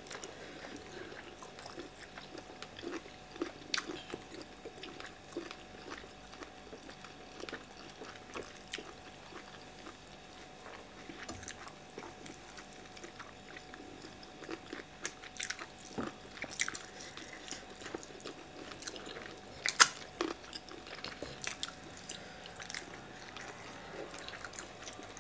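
Two people eating yam fufu, okra soup and smoked mackerel with their hands: soft chewing and wet mouth sounds, with scattered small clicks and a few sharper ones, the loudest about twenty seconds in.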